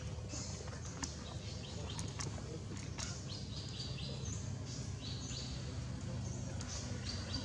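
Birds chirping repeatedly in short high calls, over a steady low rumble, with a few sharp clicks in the first few seconds.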